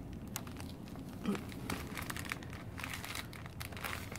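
Plastic snack wrappers crinkling as packaged biscuits are handled, a run of irregular sharp crackles.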